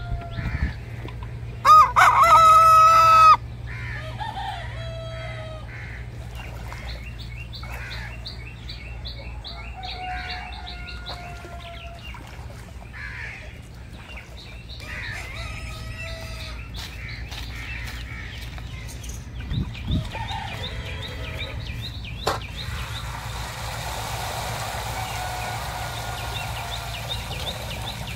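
A rooster crows once, loudly, about two seconds in. Chickens then cluck on and off, and small birds chirp.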